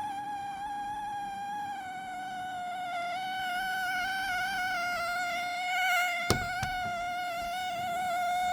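A Dell Premier Wireless ANC headset (WL7024) giving off a loud, steady electronic whine that wavers slightly in pitch and has many overtones; this is a malfunction that leaves the headset unusable. Two sharp clicks come about six seconds in.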